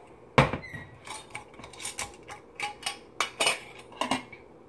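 Glass mason jar being opened and a metal spoon handled against glass and dishes: a string of sharp clinks and clanks, the loudest about half a second in.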